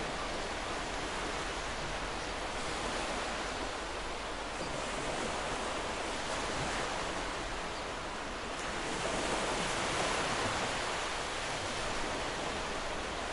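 Steady wash of ocean surf, swelling a little louder about nine seconds in.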